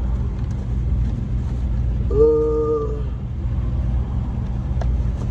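Steady low rumble of an idling car engine, with a single horn blast of just under a second about two seconds in.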